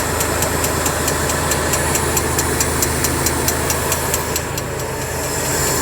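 Tractor engine running steadily under load, driving a tractor-mounted flour mill (atta chakki). A fast, regular ticking of about five clicks a second rides over the drone and fades briefly near the end.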